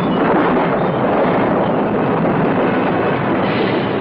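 Loud, steady roaring rush of noise with no distinct tones, a sound effect for the tsunami wave sweeping in.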